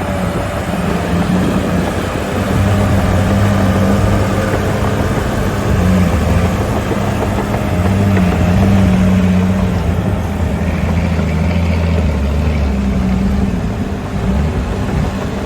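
Caterpillar D5G XL crawler bulldozer's diesel engine working as the machine pushes soil. It runs steadily and loudly, its pitch dipping and recovering a little, a bit louder in the middle and easing near the end.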